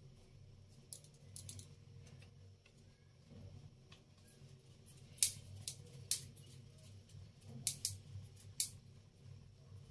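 Faint, scattered small clicks and soft taps from hands pinching shut and shaping a potato-stuffed ball of wheat dough for aloo paratha, with a few sharper clicks in the second half.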